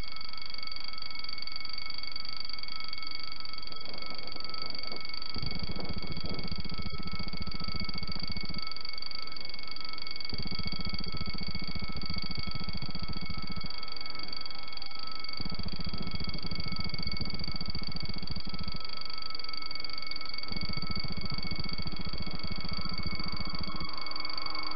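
Level-crossing warning ringing steadily with several high tones held at one pitch, while the barriers are down ahead of a train. Under it a low buzz cuts in for about three seconds and out for about two, over and over.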